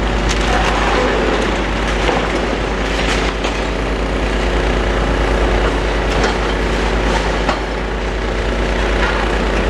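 Demolition excavator running as its grab pulls down a concrete and glass wall, with several crashes and clatter of falling debris over a steady engine rumble.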